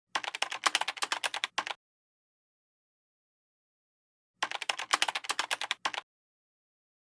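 Two short bursts of rapid, dense clicking, each about a second and a half long, with dead silence before, between and after them.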